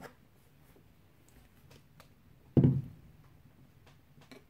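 Candle jars and a plastic whipped-soap tub being handled and set down on a wooden table: a few light taps and clicks, with one louder knock and a short low ring about two and a half seconds in.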